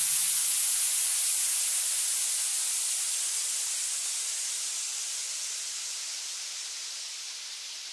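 A white-noise sweep from a house-music track, a high hiss with no beat under it, fading out slowly.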